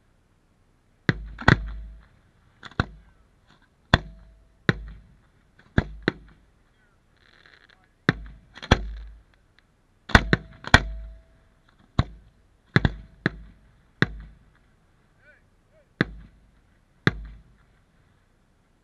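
Aerial firework shells bursting overhead: an uneven series of about eighteen sharp booms, roughly one a second and sometimes two in quick succession, each trailing off in a short rumbling echo.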